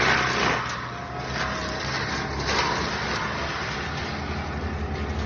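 Diesel forestry mulcher running: loud grinding as the mulcher head chews through brush and throws out wood chips for about the first half second, then the machine's engine runs on steadily at a lower level.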